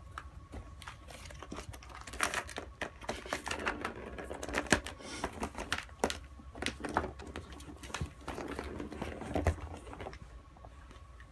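A cat batting at a red plastic circular track toy. The plastic ring and the ball inside it give irregular clicks, knocks and rattles, which die down near the end.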